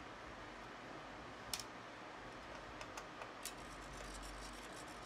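Small hand-tool and parts-handling clicks from a precision screwdriver and small camcorder lens parts: a few sharp clicks about a second and a half and three seconds in, then a run of light ticks, over a faint steady hiss.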